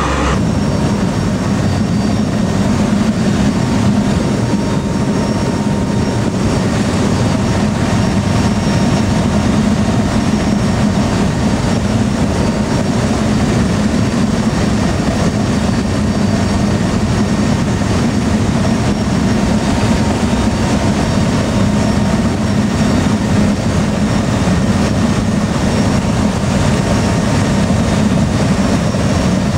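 Steady in-flight noise of a C-130 Hercules's four Allison T56 turboprop engines and propellers, heard from aboard the aircraft: a loud, even drone with a low hum and faint steady tones above it.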